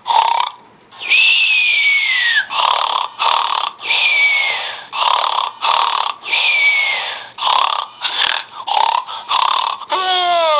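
Snoring through a pacifier held in the mouth: a quick run of rasping breaths with three long whistles that fall in pitch, about two and a half seconds apart, and a short squeak that slides down in pitch near the end.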